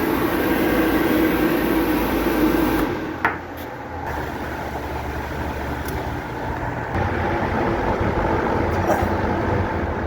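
A machine running steadily, with a whirring hum. About three seconds in its sound shifts to a lower hum, with a short knock just after the change.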